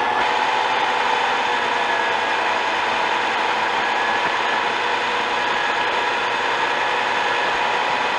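Old milling machine running, its cutter milling dry through welded steel: a steady mechanical whir and grind with a few held tones.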